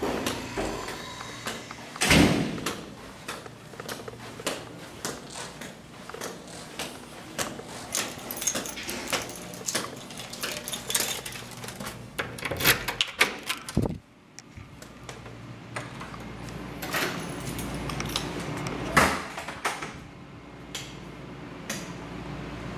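Keys jangling and clicking at an apartment door, with the knocks of the lock and handle being worked and the door opening. A run of quick taps and clicks builds to a sharp knock a little past halfway, after which it goes quieter.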